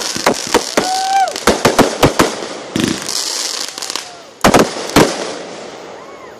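Consumer fountain firework spraying sparks, hissing with a rapid run of sharp crackling pops. About four and a half seconds in come two loud bangs half a second apart, after which the crackle dies away.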